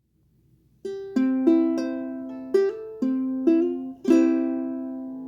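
A short plucked-string intro tune, ukulele-like: a quick run of bright plucked notes starting just under a second in, the last one left ringing and slowly fading.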